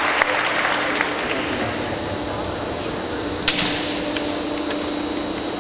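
Hushed sports-hall ambience with a steady low hum. Applause fades out in the first second, then come scattered light clicks and one sharper clack about three and a half seconds in.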